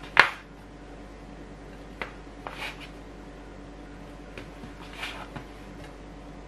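A plastic bench scraper cutting bread dough on a wooden table: one sharp knock of the scraper striking the wood near the start, then a few softer taps and short scrapes as dough pieces are cut off and set down.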